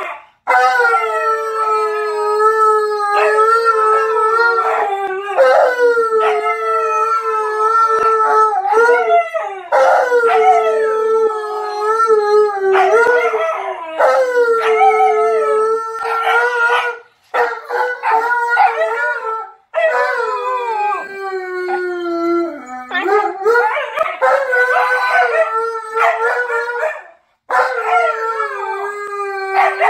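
An Alaskan malamute and a husky puppy howling together in long, drawn-out calls that glide up and down in pitch, often overlapping, with a few short breaks between them.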